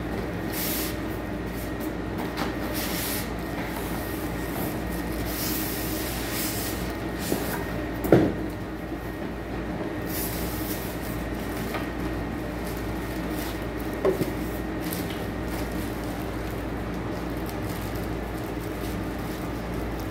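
Cardboard box and plastic wrap rustling and scraping as a boxed plancha grill is lifted out of its foam packing, with two sharp knocks, the louder about eight seconds in and a smaller one about fourteen seconds in, over a steady low hum.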